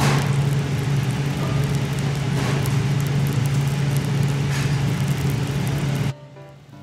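Butter and scallop juices sizzling and bubbling in the shell on a wire grill over charcoal, a dense crackling hiss over a steady low hum. It cuts off about six seconds in.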